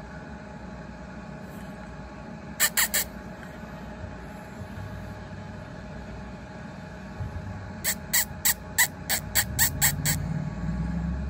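Short, high squeaks made by a person's mouth, like a squeaky toy: three quick ones about two and a half seconds in, then a run of about ten, four or five a second, near the end.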